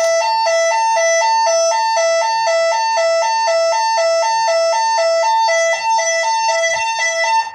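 Electronic alarm sounder giving a two-tone hi-lo warning, switching between a lower and a higher pitch about twice a second: the alarm set off by activating a key-switch panic button. It cuts off suddenly near the end.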